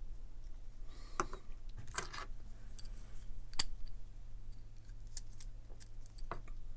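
Small metal parts of a disassembled pocket knife being handled: a handful of separate light clicks and clinks, spaced out over several seconds, over a steady low hum.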